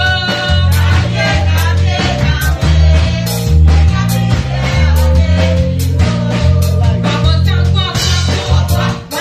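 Upbeat praise music: a woman singing into a microphone over a pulsing bass line and regular drum beats.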